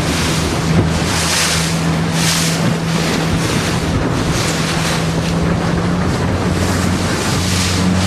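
Wind buffeting the microphone and water rushing and splashing past a moving boat, the rush swelling roughly once a second. A steady low engine hum runs underneath.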